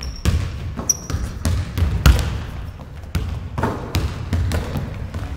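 Several basketballs bouncing on a hardwood gym floor: irregular thuds from more than one ball, about two or three a second, with a couple of short high squeaks near the start.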